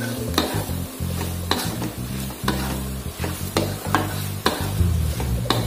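Black plastic spatula stirring and tossing cabbage and sausage in an aluminium wok over a steady sizzle of frying. The spatula scrapes and knocks against the pan about once a second.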